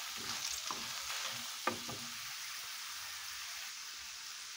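Dried chiles de árbol and guajillo, with onion and garlic, sizzling steadily in oil in a frying pan over low heat, being lightly browned for salsa macha. A spoon stirs and knocks against the pan a few times in the first two seconds, then only the sizzle remains.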